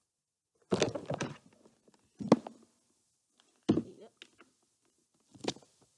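A handful of dull thumps and knocks, four separate bumps spread over a few seconds: handling noise as the camera is picked up and moved.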